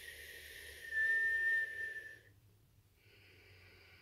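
A steady, high-pitched whistle of breath drawn in over the tongue in the whistling sitali pranayama breath. It is a single held note from about a second in, lasting just over a second, with airy breath noise around it. A soft breath follows near the end.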